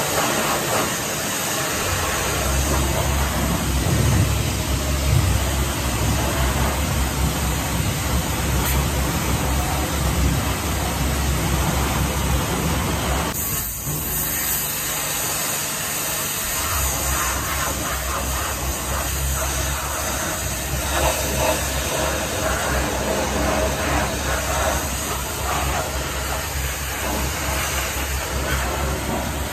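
Hot-water pressure washer (steam cleaner) jetting a tractor: a steady loud hiss of the spray on metal, with the machine's low running hum underneath. The hum drops away for a few seconds about halfway through, then returns.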